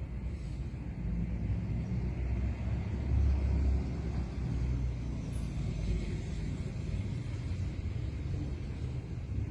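Low, steady rumble of outdoor street ambience, swelling briefly about three seconds in.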